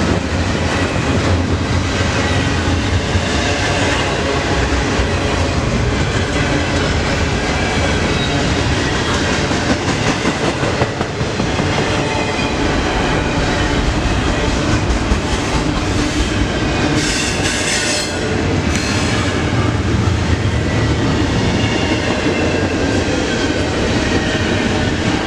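CN double-stack intermodal container freight train rolling past at track speed: a loud, steady rumble and rattle of the well cars' wheels on the rails, with faint high wheel squeal running through it.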